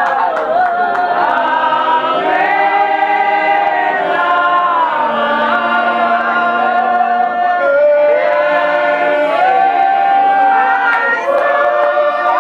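Congregation singing together, many voices holding long notes that change pitch every second or two.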